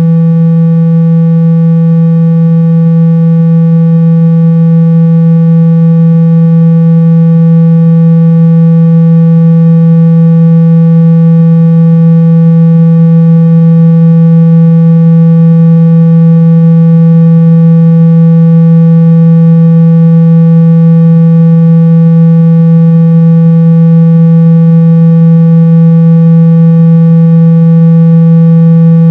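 Phone speaker-cleaning tone: a loud, steady low tone with a slightly buzzy edge, held without any change. It is played through a phone's speaker to vibrate it and shake out dust and water.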